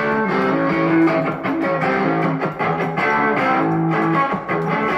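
Electric guitar being played, a run of changing notes and chords.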